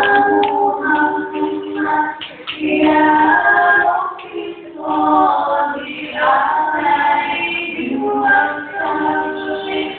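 A university choir singing a cappella in several voice parts, in phrases with brief breaths between them.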